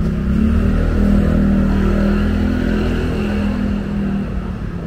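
A motor vehicle engine running close by, a steady hum that grows loudest about a second in and eases off near the end, as if passing.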